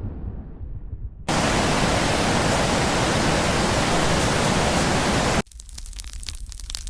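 AI-generated sound effects in sequence: the fading rumble of an explosion, then a loud, steady hiss that starts suddenly about a second in and cuts off about four seconds later, then a dense crackling.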